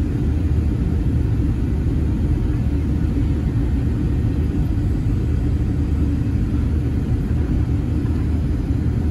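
Steady low roar of a Boeing 757-300's jet engines and rushing airflow, heard inside the cabin from a window seat over the wing while the airliner is on final approach.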